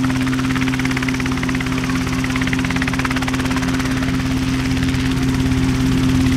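RotorWay A600 Talon light helicopter hovering low and settling toward its skids. Its piston engine gives a steady hum under the fast, even chop of the main rotor blades.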